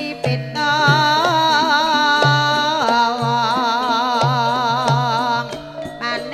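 Javanese gamelan music playing through loudspeakers, with a wavering, heavily vibrato melodic line, most likely a singer's voice, over steady metallophone tones and repeated low drum strokes. The melody breaks off briefly near the end.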